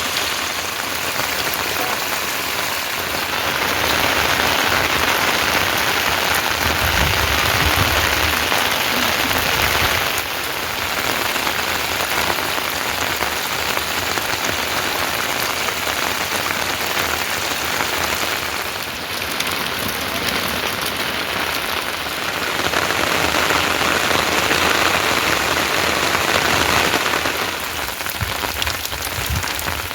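Steady heavy rain falling, a dense even hiss that jumps up or down in loudness abruptly several times.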